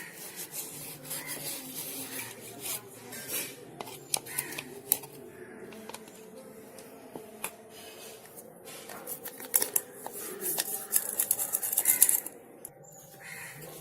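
Toothbrush scrubbing a mixer grinder jar with dish soap: rapid scratchy brushing in uneven strokes, busiest near the end.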